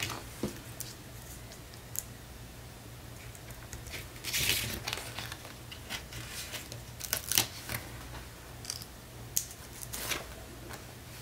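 Papercraft handling on a cutting mat: light clicks and taps from small paper pieces and tools, with a short rustle about four seconds in. Near the end a small heart sticker is pressed onto a card.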